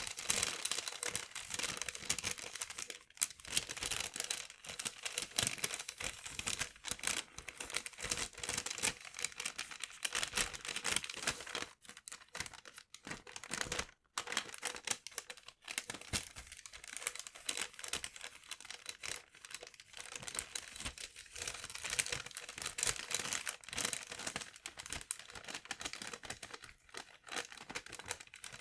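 Sheets of paper being crumpled and handled, a dense crinkling and crackling that pauses briefly a few times.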